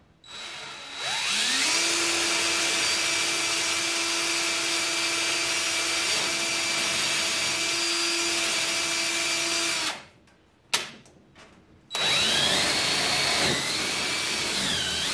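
Cordless drill drilling a bolt hole through the spreader's wooden door frame: it spins up with a rising whine, runs steadily for about nine seconds and stops. After a single click and a short pause it runs again, its pitch dipping twice as the bit bites under load.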